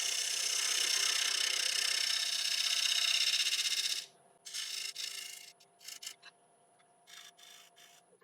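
Skew chisel shearing the foot of a Monterey cypress bowl on a spinning lathe: a steady hissing cut for about four seconds, then a few shorter cuts and light touches of the tool. A faint steady whine runs underneath.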